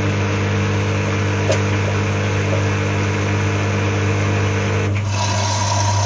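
Whirlpool AWG 371 front-loading washing machine running its rinse, the motor turning the drum with a steady hum. About five seconds in the tone changes as a higher whine comes in.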